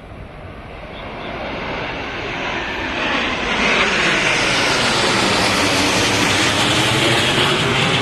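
Formation of AT-3 twin-turbofan jet trainers flying low overhead, the jet noise swelling over the first three seconds as they close in, then holding loud as they pass.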